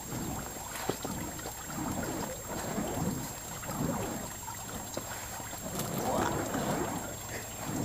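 Burning fire poi swung around on chains, whooshing in rhythmic swells about once a second as the flames pass close by.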